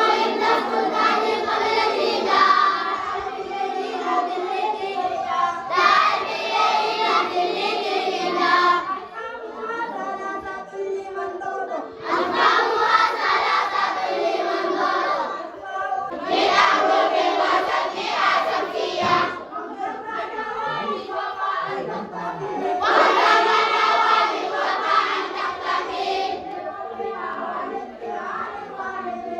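A group of children singing together in unison, in loud phrases a few seconds long separated by quieter stretches.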